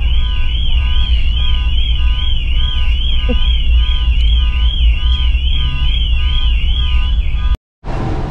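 A car alarm going off: a siren tone warbling up and down about three or four times a second, over a steady low rumble. It stops abruptly near the end.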